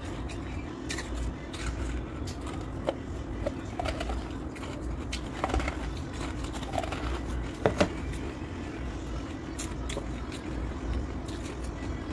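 Freezer-frost ice being handled on a plate, with a few light clicks and crackles over a steady low hum, the loudest a quick double click a little past halfway.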